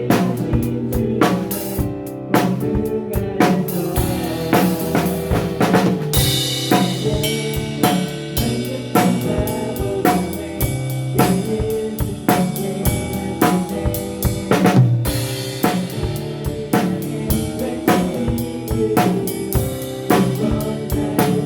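Live worship band playing an instrumental passage: a drum kit keeps a busy groove of snare, bass drum and rim hits over sustained chords, with crashes of cymbal about six seconds in and again around fifteen seconds.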